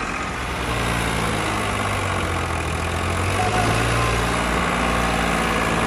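Farmtrac tractor's diesel engine running while it pulls a heavily loaded trolley.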